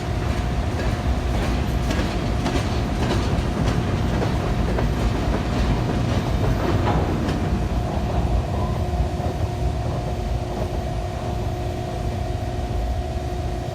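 Freight train rolling by with a heavy rumble and wheels clicking over the rail joints. The clicks thin out about halfway through, and a faint steady hum runs underneath.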